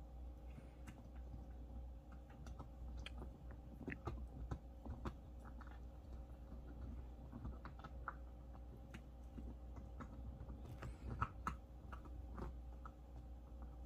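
Small curly-coated white dog chewing and eating on a bed: faint, irregular small crunches and clicks of its mouth, a few louder ones around four and eleven seconds in.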